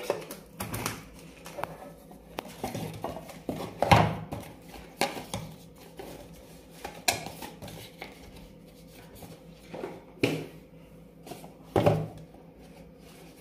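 Hands handling packaging on a wooden tabletop: a small metal tin's lid pressed on, then a cardboard box opened, turned over and closed. Scattered knocks, clicks and taps, the sharpest about four seconds in and again near the end.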